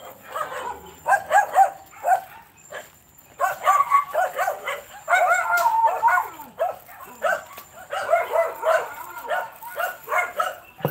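A small dog yapping in quick, high-pitched repeated barks, with a short pause about three seconds in.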